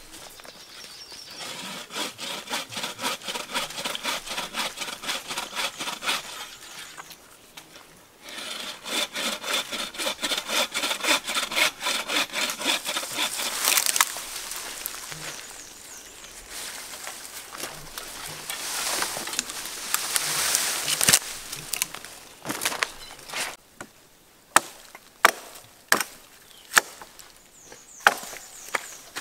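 Hand saw cutting through a small tree at its base with fast, even back-and-forth strokes, pausing briefly and starting again. Later come rustling and a run of sharp knocks, several seconds apart, near the end.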